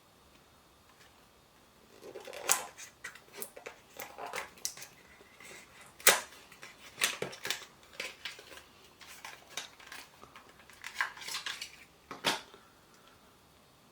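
A phone-case box being opened by hand: irregular rustling, scraping and sharp clicks of cardboard and hard plastic packaging, the sharpest click about six seconds in and another near the end.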